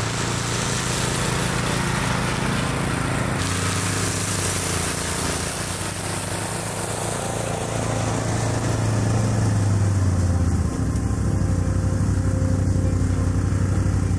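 ATV and Rammy ATV brushcutter mowing through tall field grass, engines running steadily under load. The sound gets louder about nine seconds in as the machine passes close by.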